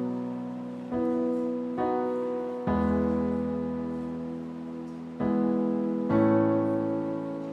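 Electric keyboard playing slow sustained piano chords. Five chords are struck one after another, each ringing out and fading before the next.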